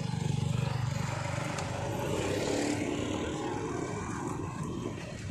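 Road traffic driving close past: a motorcycle, then a van, their engines and tyres rising and falling as they go by.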